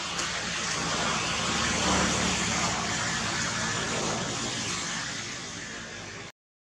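A motor vehicle passing: a rushing noise that swells to its loudest about two seconds in, then slowly fades, and cuts off abruptly near the end.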